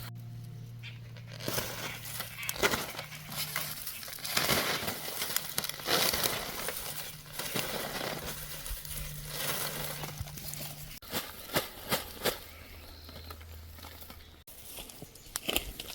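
Irregular rustling and crinkling with scattered crackles and clicks, with a faint low hum in parts.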